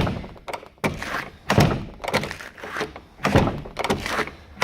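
A door being worked with its deadlatch: several thuds and latch clacks about a second apart, as the door is pushed shut against the strike.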